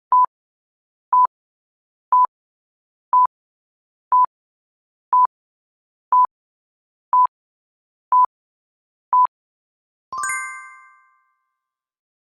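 Quiz countdown timer: ten short electronic beeps at one pitch, one a second, then a bell-like ding that rings out over about a second, marking time up.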